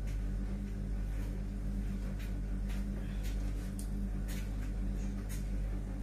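A spatula stirring fried rice in a large frying pan on a gas hob, making a series of light, irregular clicks and scrapes against the pan, over a steady low hum.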